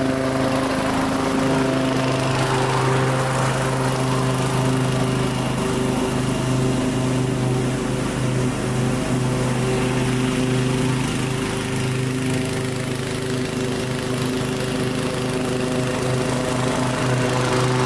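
Toro TimeMaster mower's Kohler Command Pro CV224 single-cylinder engine running steadily under load while mulching tall, damp grass, not bogging down.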